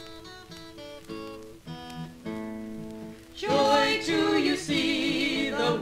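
Acoustic guitar picking a short introduction, then a small group of voices coming in singing about three and a half seconds in, from a 1964 45 rpm record.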